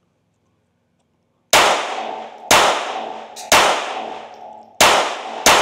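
Unsuppressed SIG P322 .22 LR pistol firing CCI subsonic rounds: five sharp shots about a second apart, starting about a second and a half in, each followed by a ringing decay.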